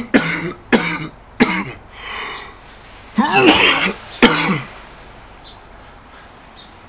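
A man coughing hard in a fit of about six loud coughs in two clusters, the last about four and a half seconds in.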